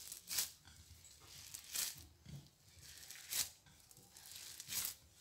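Hands squeezing and gathering a crumbly mix of desiccated coconut and sweetened condensed milk on a ceramic plate: four soft rustling strokes, about a second and a half apart.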